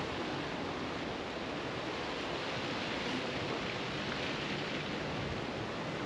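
Steady wind, an even rushing hiss with no distinct events.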